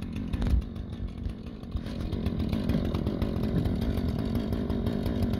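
Gasoline chainsaw running steadily, getting somewhat louder from about two seconds in as it is brought up to the fallen trunk it is about to cut.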